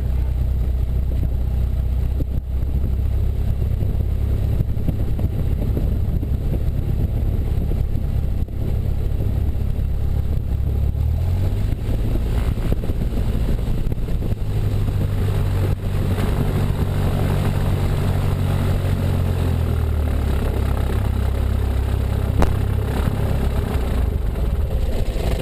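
Cessna 172 Skyhawk's piston engine running at low power while taxiing, a steady low drone whose pitch steps up and back down a couple of times as the throttle is moved.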